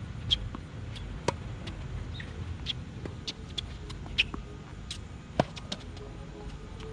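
Tennis rally on a hard court: a string of sharp racket-on-ball hits and ball bounces, near and far, about one to two a second, the loudest about a second in and again past five seconds.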